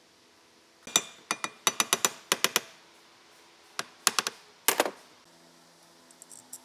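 Quick, irregular run of sharp clicks and taps from small hard objects knocking together: about a dozen in the first couple of seconds, then about seven more a second or so later, and a few faint ticks near the end.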